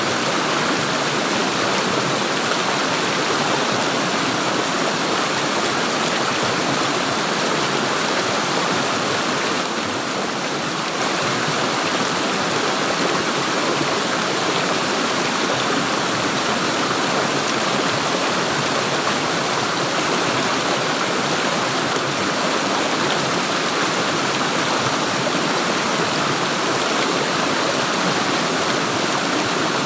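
Flowing stream water gurgling and rushing steadily, dipping slightly for about a second roughly ten seconds in.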